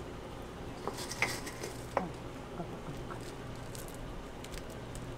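Steady low hum of café kitchen room tone, with a few faint light clicks and taps about one to two seconds in.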